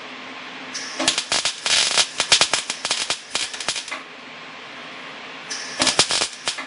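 Wire-feed (MIG) welder arc crackling and sputtering as weld is laid over cracks in a steel car frame. It fires in two runs: one starting about a second in and lasting about three seconds, and a second starting near the end, with a steady hiss between.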